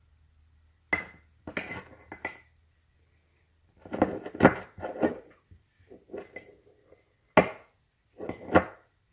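A metal utensil clinking and scraping against dishes in several short clusters of knocks and clatters, with two sharper knocks near the end: kitchenware handled while spooning a sugar-and-butter filling into an apple in a custard cup.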